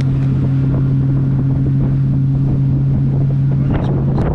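Motorboat engine running at a steady speed, a steady low hum, with wind buffeting the microphone. Near the end the hum weakens and breaks up, and rough wind and water noise take over.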